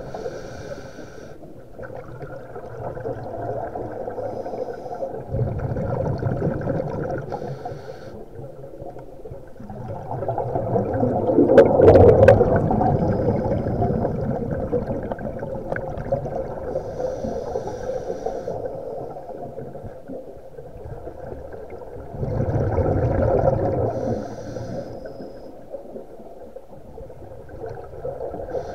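Scuba regulator breathing heard underwater: short hisses of air drawn through the demand valve alternate with rumbling, gurgling bursts of exhaled bubbles, the loudest about twelve seconds in with a few sharp clicks.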